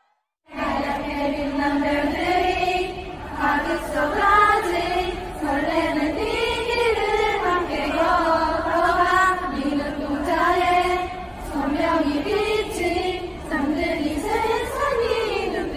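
A large crowd of fans singing a melody together in unison, the massed voices blurring into one choir-like sound. It starts suddenly about half a second in.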